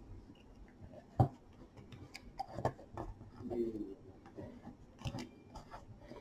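Metal loom hook clicking and scraping against the pegs of a round knitting loom as stitches are knit off: scattered light clicks, the sharpest about a second in.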